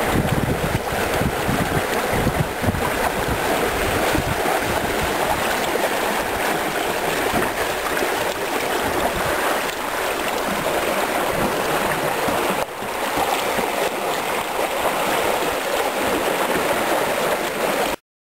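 Water rushing and splashing along the hulls of a 17 ft Windrider trimaran under sail, with wind buffeting the microphone, most in the first few seconds. The sound cuts off suddenly near the end.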